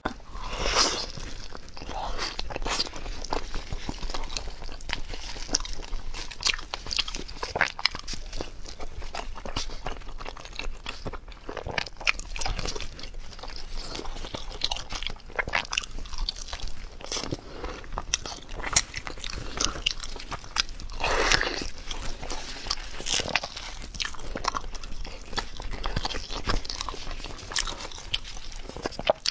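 A person chewing and biting a braised pork trotter close to the microphone, with a steady run of sharp clicks and wet smacking mouth sounds.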